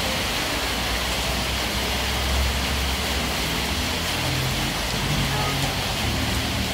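Steady hiss of rain falling, with a low hum underneath and faint distant voices of players.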